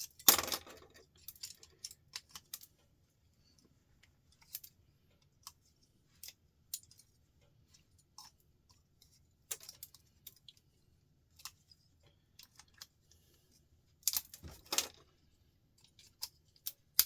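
Irregular clicks, taps and clinks of small metal parts and hand tools as electrical switches are picked apart for their contacts, with a louder clatter just after the start and a cluster of knocks near the end.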